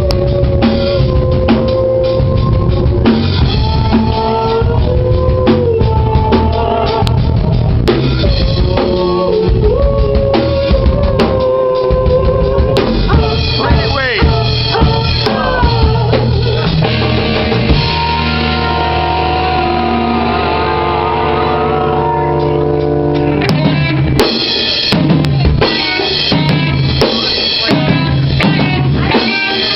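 Live prog-rock band playing: drum kit with bass and melodic instruments. About 18 s in the drums drop out under a held chord, and the full band with drums comes back in about 24 s in.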